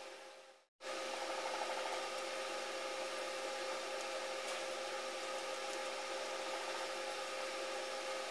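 Steady hissing kitchen noise with a constant hum while a roti cooks on a hot iron tawa. It fades and cuts out for a moment just under a second in, then carries on unchanged.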